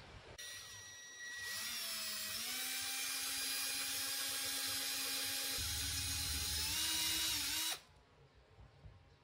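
Cordless drill boring through a thin plastic disc: the motor spins up with a rising whine, runs steadily for about six seconds, then stops suddenly.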